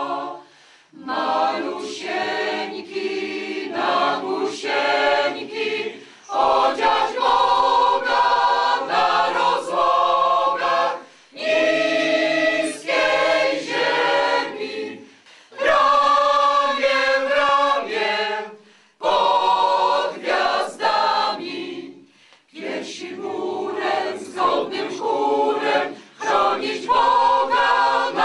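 Mixed choir of women's and men's voices singing a Polish Christmas carol a cappella, in sung phrases of a few seconds each with short breaks between them.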